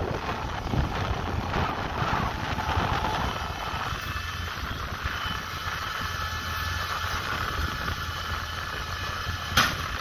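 Tractor engine running steadily while a John Deere round baler ejects a finished round bale. From about four seconds in a thin high whine runs over the machine noise, and a single sharp clank comes near the end as the tailgate shuts.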